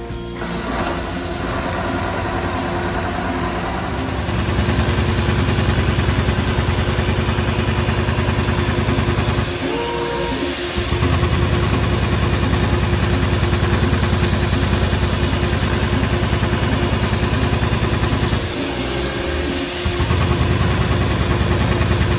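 Automatic perforating machine's needle head punching holes at a fast, even stroke rhythm. The rhythm pauses briefly twice, at about ten and nineteen seconds in.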